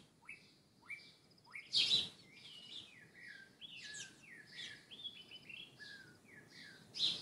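Small birds chirping and twittering in a busy run of short, falling notes, with a few sharp, louder calls about two seconds in and near the end.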